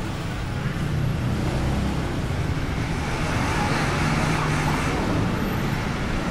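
City street traffic: engines running and vehicles passing in a steady wash of road noise, swelling a little around the middle.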